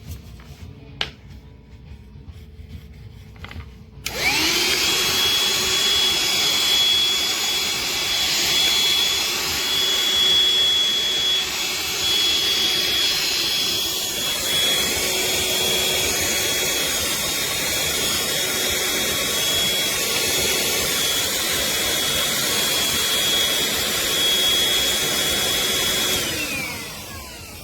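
Black+Decker Dustbuster 8V cordless handheld vacuum switched on about four seconds in. Its motor spins up to a steady high whine over a rush of air, runs for about twenty seconds, then winds down with falling pitch near the end. Quiet handling and a click come before it starts.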